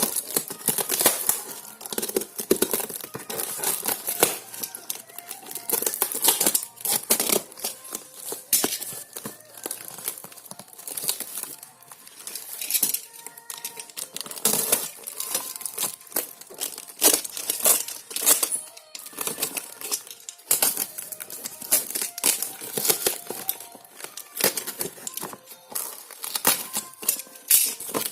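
Plastic packaging crinkling and tearing in irregular bursts as it is handled and pulled open.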